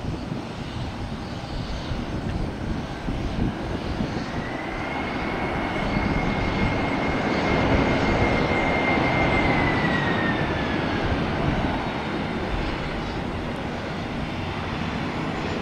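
FedEx Airbus A300 freighter's jet engines during its landing rollout on a wet runway: the rumble swells with a high whine that holds level and then falls in pitch as it winds down, typical of reverse thrust being applied and then stowed.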